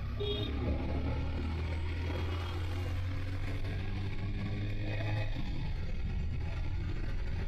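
Motorcycle being ridden on a city road: the engine runs at a steady low hum under road and wind noise, and the hum drops away about five seconds in.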